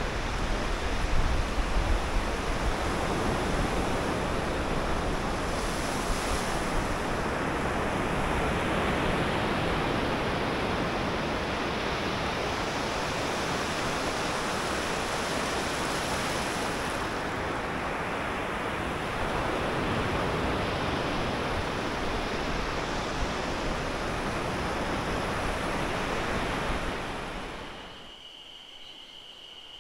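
Surf breaking and washing up over a flat sandy beach, a steady rushing wash of waves, with wind buffeting the microphone in the first few seconds. About 28 s in it gives way to a much quieter open-air ambience with a faint steady high tone.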